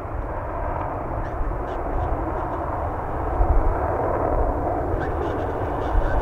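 Distant roar of a US Air Force F-15's twin turbofan jet engines after a low pass, a steady deep rumble that grows a little louder about three and a half seconds in.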